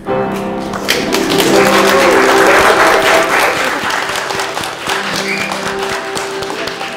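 Wedding guests applauding, starting about a second in, swelling, then easing off, over music with long held notes.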